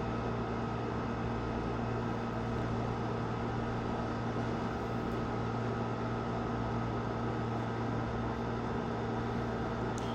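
Steady low hum with a thin high tone over an even hiss, unchanging: background noise of a running appliance or electrical equipment.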